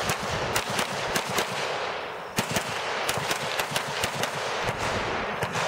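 Glock pistol fired in rapid strings, several shots a second, with a short lull about two seconds in before the rapid firing resumes.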